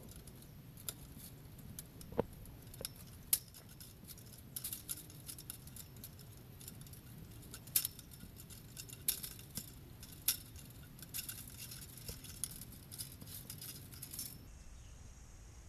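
Chain-link fence wire clinking in scattered, irregular sharp clicks as a section of the mesh is twisted and worked out of the fence; the clicks stop near the end.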